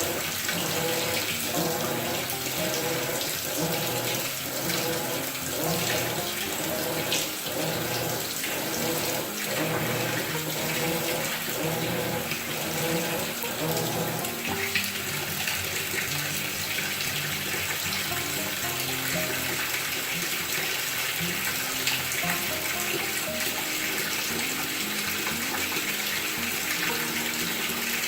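Water rushing into a Maytag top-load agitator washer's tub as it fills: a steady rush of water. A soft rhythmic pulse, about twice a second, runs through roughly the first half.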